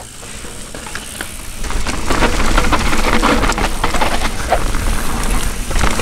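Mountain bike rolling down a wet dirt trail and picking up speed, its tyres and frame chattering over bumps, with wind rumbling on the chin-mounted camera. It grows louder about two seconds in.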